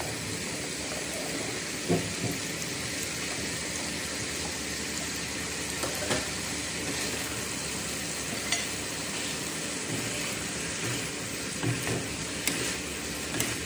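Meat and vegetables with freshly added shredded cabbage stir-frying in a frying pan, a steady sizzle throughout. A wooden spatula scrapes and gives a few soft knocks against the pan as the food is turned, with several sharper clicks near the end.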